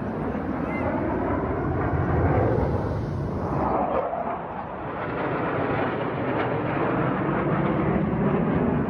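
Aircraft flying overhead: a steady, loud rumble of engine noise that swells about two seconds in.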